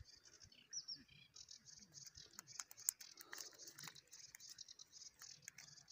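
Faint rustling and light clicks of a mesh fishing keepnet and a plastic bag being handled on grass, with one sharp click about three seconds in. Under it runs a faint high-pitched chirring, repeated several times a second.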